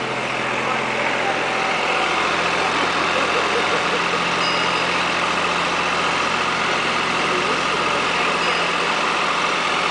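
Farm tractor engine running steadily as it tows a loaded hay wagon along a dirt track, an even low hum under a constant noisy rush.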